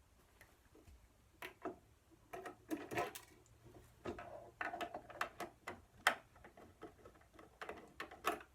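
Irregular clicks and light knocks of hands working the cover off an industrial sewing machine's control box, starting about a second and a half in.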